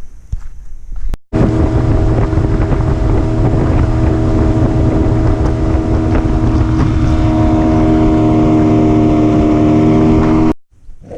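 Boat's outboard motor running steadily at speed, a loud, even drone over a heavy low rumble, with wind on the microphone. It cuts in about a second in and cuts off abruptly near the end.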